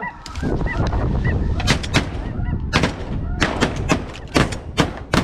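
Snow geese honking overhead, then from about a second and a half in a rapid volley of shotgun blasts from several hunters, around ten shots in quick succession.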